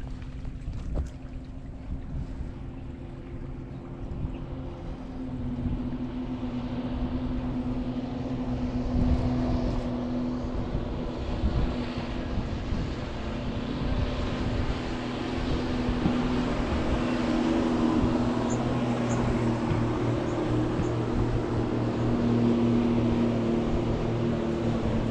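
Motorboat engine running steadily over the noise of river water, growing louder from about five seconds in as it comes closer.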